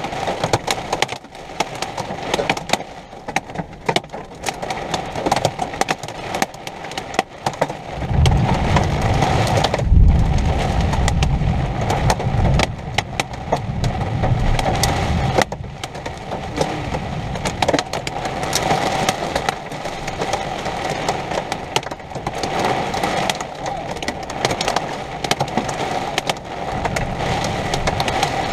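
Thunderstorm: steady rain with many sharp ticks and taps of drops, and perhaps hail, striking nearby surfaces. A deep rumble of thunder swells about eight seconds in, is heaviest around ten seconds, and fades out by about fifteen seconds.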